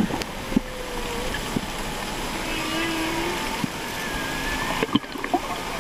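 Humpback whale song heard underwater: several separate tonal calls, each gliding up or down in pitch, over a steady hiss of ocean noise with a few sharp clicks.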